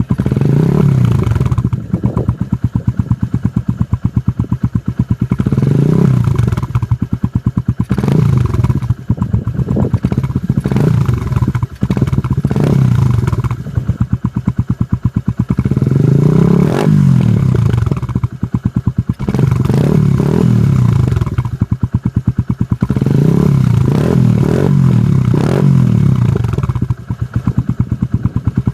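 Lexmoto Adrenaline 125's 125 cc single-cylinder engine through an aftermarket Lextech Hexagonal exhaust, idling with an even putter and revved in short throttle blips again and again, the pitch rising and dropping back to idle each time.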